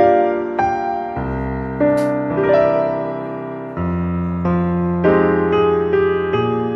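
Background piano music: a slow melody of single struck notes, each left to ring and fade.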